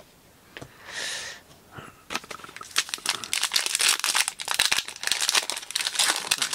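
Foil wrapper of a 2023 Panini Zenith football card pack crinkling and tearing as it is pulled open by hand, dense crackling from about two seconds in. A short soft rustle comes about a second in, before the tearing starts.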